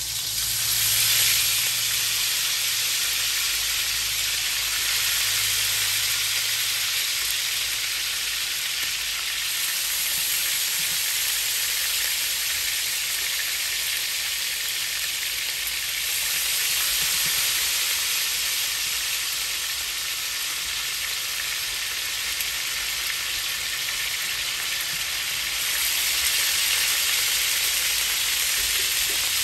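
Marinated chicken leg quarters searing in hot oil in a karahi: a steady sizzle that swells louder several times as more pieces are laid into the pan.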